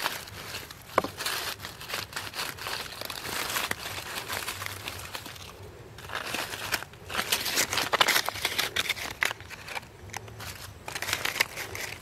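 Dry leaf litter crackling and rustling as a gloved hand moves through it around a ground nest of eggs, in irregular spells with short lulls. A short falling squeak about a second in.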